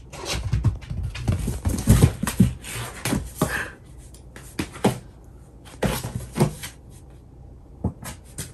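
Cat scrabbling and thrashing inside a cardboard box: a fast run of scratching and scuffing on the cardboard for the first four seconds, then short bursts of scuffling a few times after.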